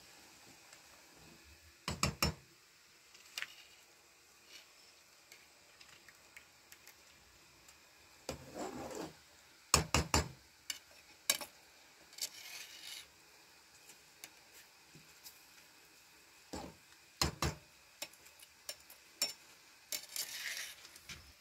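Intermittent clatter of dishes and utensils being handled: irregular sharp knocks and clinks in small clusters, the loudest about ten seconds in, with brief scraping sounds in between.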